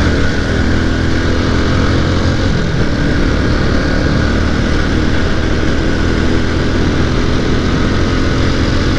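Yamaha R15 V3's single-cylinder engine running steadily at high speed in a high gear, with heavy wind noise rushing over the microphone.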